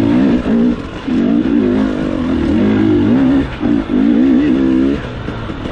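Off-road dirt bike engine being ridden hard, revving up and down with the throttle, with brief chops between bursts and easing off near the end.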